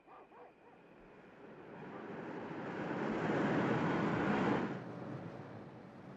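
A rushing noise swells over about three seconds, then falls away suddenly a little before the end.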